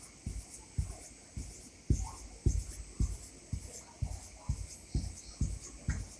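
Felt-tip marker drawing small circles on a whiteboard: a regular run of soft taps with faint scratching, about two a second, one for each little loop.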